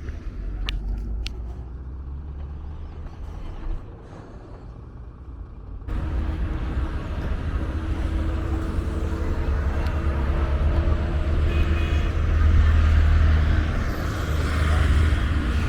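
Street traffic: engines of passing vehicles over a steady low rumble. The noise jumps abruptly louder about six seconds in, with a held engine hum for several seconds after that.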